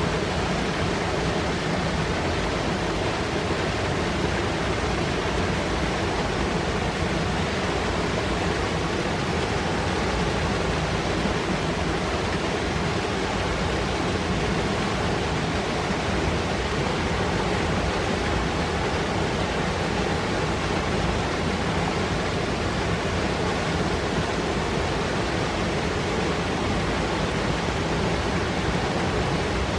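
Fast mountain river rushing and foaming over rocks, a steady, unbroken rush of white water.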